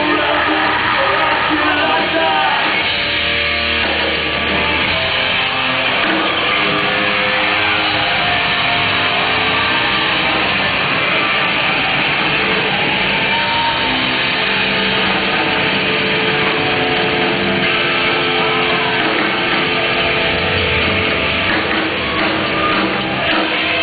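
Metalcore band playing live at full volume: distorted electric guitars, bass and drums, with shouted vocals.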